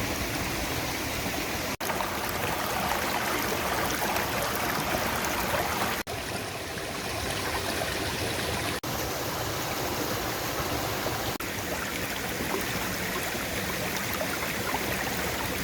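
Running stream water rushing steadily, broken by a few split-second dropouts.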